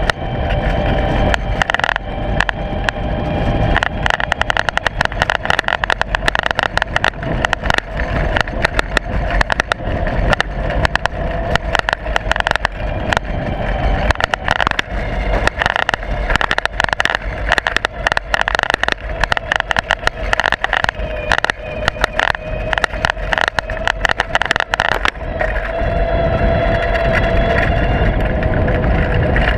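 Loose camera mount rattling and knocking hard and almost constantly on a moving ride, over a steady whine and low rumble from the ride itself. The rattling stops about 25 seconds in, leaving the steady whine.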